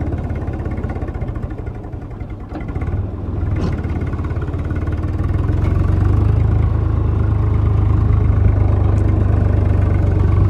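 Tractor diesel engine running steadily. It dips briefly about two to three seconds in, then grows louder from about five seconds on.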